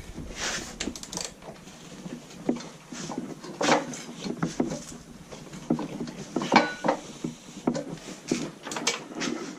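Metal hand tools and hardware clinking and knocking in irregular taps and clicks while a bolt on a dirt bike is worked on, one knock about two-thirds of the way through ringing briefly.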